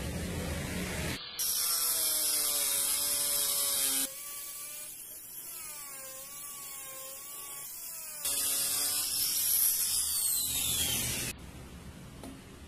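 Angle grinder with a flap disc grinding a weld flush on steel tubing: a motor whine whose pitch sags and wavers as the disc is pressed onto the metal, heard in several stretches that start and stop abruptly.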